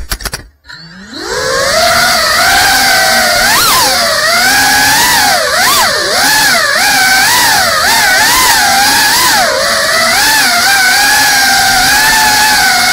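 GEPRC CineLog 35 cinewhoop FPV drone's brushless motors and ducted propellers whining, the pitch swinging rapidly up and down with the throttle. About half a second in, the sound drops to almost nothing as the throttle is cut, then it spools back up in a rising whine.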